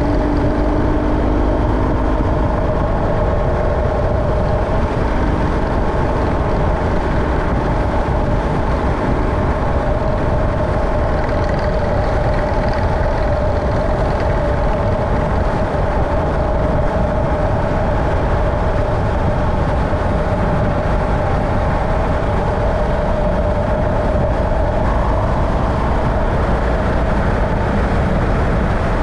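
Steady running noise of a vehicle under way: a constant low rumble with an even hum over it, unchanging throughout.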